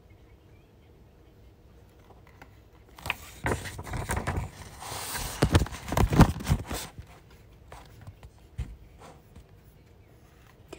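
Paper rustling as a paperback book's page is turned and smoothed flat by hand, starting about three seconds in and lasting a few seconds, followed by a few light taps.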